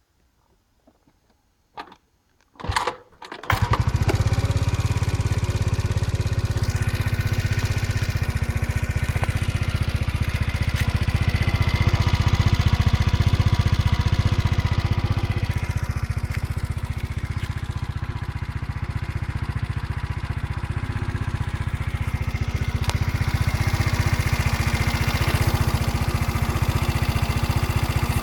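The Motino Techno 50 scooter's YY50QT 50 cc four-stroke single-cylinder engine starts about three seconds in after a few faint clicks and a brief crank, then runs steadily at idle with slight rises in speed. The engine is freshly rebuilt and overheats within a few kilometres; the owner asks whether this running sound is normal.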